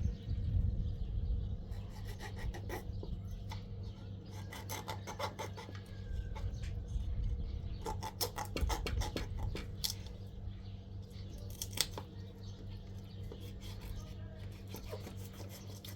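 Quick clicks and scraping strokes of hand work with a tool or object, in clusters, over a steady low hum.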